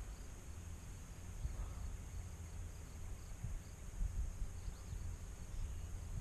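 Faint outdoor riverside ambience: a low, unsteady rumble like wind on the microphone under a steady hiss, with a thin high steady tone and faint, evenly repeated chirps.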